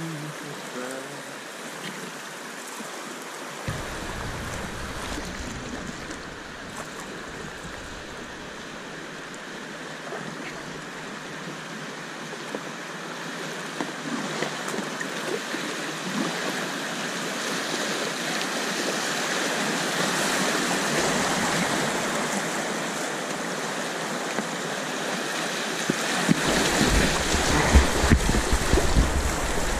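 River water rushing past a kayak. It builds slowly and grows louder and rougher about 26 seconds in as the boat runs into a whitewater rapid, with low buffeting rumble on the camera's microphone.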